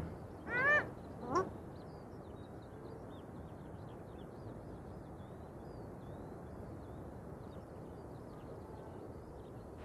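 Two short, harsh animal calls in the first second and a half, followed by a steady faint outdoor hiss with faint high bird chirps.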